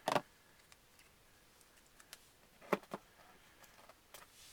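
Trading cards and their packaging handled by hand: a few brief clicks and rustles, at the start, twice near the middle and once near the end, with quiet in between.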